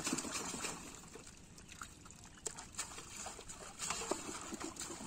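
Pond water sloshing and dripping around a seine net full of live fish, with scattered small splashes and knocks as fish are scooped up in plastic baskets and tipped into a basin.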